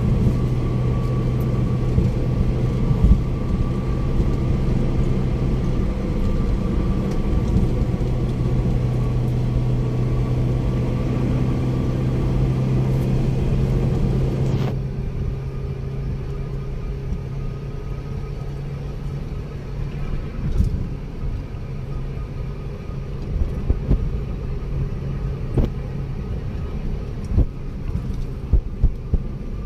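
Steady road noise of a car driving on a toll road, heard from inside the cabin: a low drone of tyres and engine. About halfway through, the higher hiss drops away suddenly and the noise gets a little quieter. A few light thumps come near the end.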